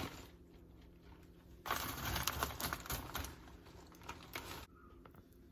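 Pecan wood chips being handled: about two seconds of quick small clicks and rustling, starting about a second and a half in, with a few stray clicks later.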